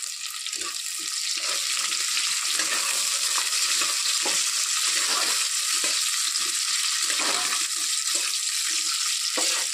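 Onions, peanuts and green chillies sizzling in hot oil in an aluminium pressure cooker, a steady hiss, while a steel spatula stirs them with irregular scrapes against the pot.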